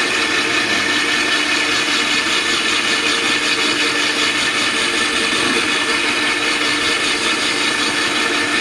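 Cordless DeWalt drill running steadily with a worn hole saw grinding into a sheet of glass.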